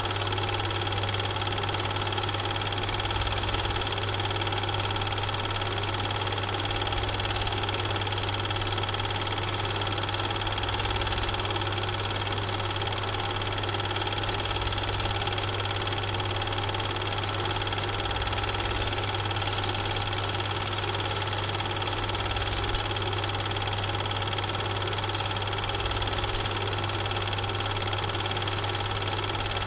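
Steady mechanical hum of a film projector running, with a few faint clicks; the Super 8 film itself is silent, so the trains are not heard.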